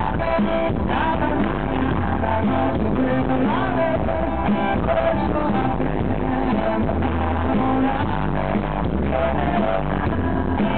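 Live pop-rock band playing: a male lead singer sings over electric guitar, bass guitar and drums, at a steady full level.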